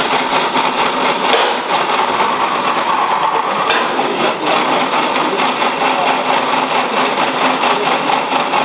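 Steady, loud running of a machine during steel plate fabrication, with two sharp knocks, one about a second in and another just under four seconds in.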